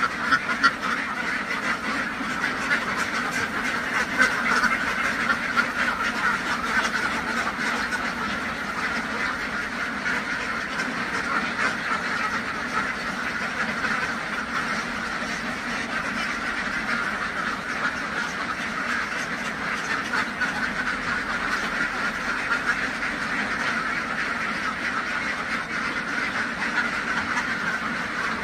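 A large flock of domestic ducks quacking in a dense, unbroken chorus at a steady level.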